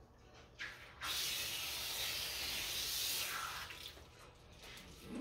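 Garden hose spraying water onto a small dog during its bath: a steady hiss of water that starts about a second in and lasts about three seconds before tapering off.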